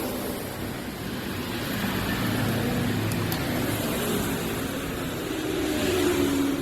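Steady motor vehicle engine noise, its pitch drifting slightly up and down.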